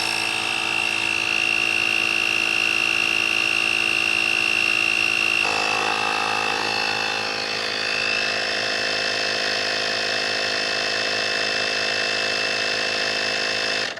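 Small portable 12-volt tire-inflator air compressor (GOOLOO A3) running steadily as it pumps up a car tire, a high-pitched motor whine over the pump's buzz. Its note shifts about five seconds in, and it stops near the end.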